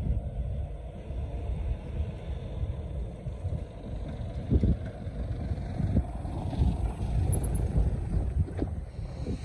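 A pickup truck drives slowly past on a rutted dirt track, its engine and tyres loudest about four to six seconds in, over a gusty wind rumble on the microphone.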